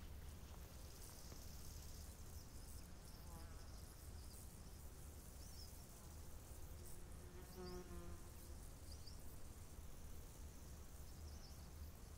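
Faint outdoor ambience, close to silence: a low steady rumble with a faint buzz passing briefly about three seconds in and again about eight seconds in.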